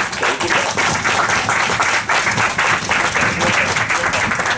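Applause: a group of people clapping steadily, with voices mixed in.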